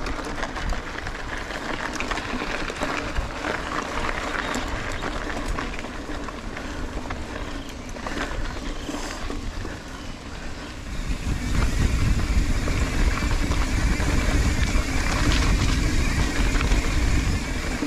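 Mountain bike ridden over gravel and then a dirt trail: tyres crunching and the bike rattling over bumps, with wind rumbling on the microphone. The rumble grows louder about eleven seconds in.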